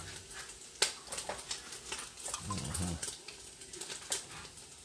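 Chef's knife chopping cooked chicken on a plastic cutting mat: a few sharp knocks, the loudest about a second in. A short low vocal sound comes about halfway through.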